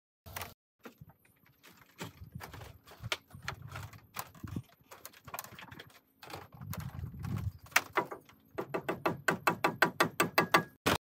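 Hollow wooden knocks and heavier thuds of bamboo poles being handled, then a machete chopping into bamboo in quick strokes, about nine a second, over the last two seconds.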